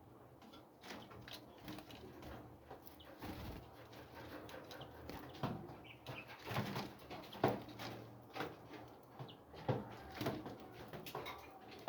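Birds fluttering and flapping their wings, with some cooing, in a run of short quick flutters and taps that grows busier about halfway through.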